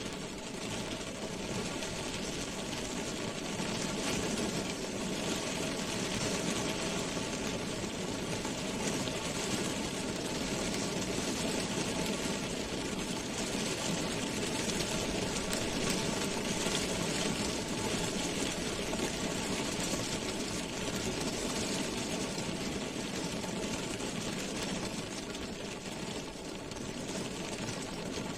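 Rain drops drumming on a car's roof and glass, heard from inside the car: a dense, steady patter of many small taps.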